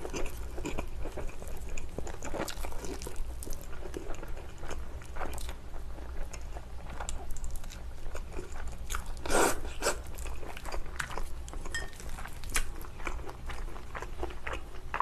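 A person eating spicy noodles: slurping and chewing, with crunchy bites and wet mouth clicks scattered throughout and one louder burst about nine seconds in.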